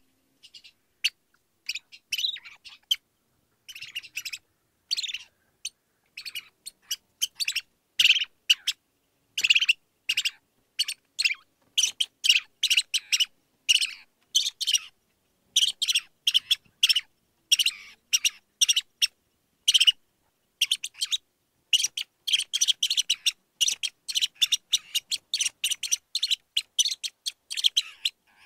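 Mouse squeaking: a long run of short, high-pitched squeaks, scattered at first and coming thick and fast from about eight seconds in.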